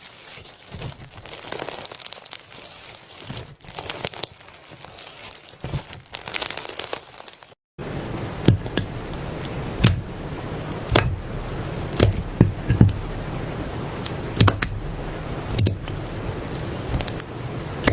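Slime being handled by hand: a soft crinkling and squishing, then, after a brief cut about seven and a half seconds in, louder sharp pops and clicks as it is pressed and stretched.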